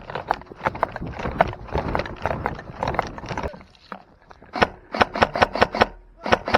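Footsteps of a player moving over rough ground, with rustling through brush at first. After a short pause, the steps turn into regular, hard footfalls about three a second.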